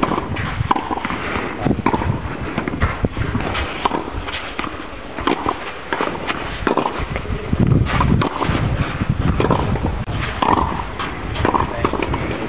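Tennis rally: rackets striking the ball in sharp pops every second or two, over a low rumble.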